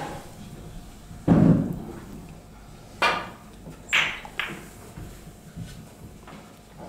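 A snooker break-off shot. A loud knock about a second in is followed by sharp clicks of snooker balls striking one another about three and four seconds in as the cue ball splits the pack of reds.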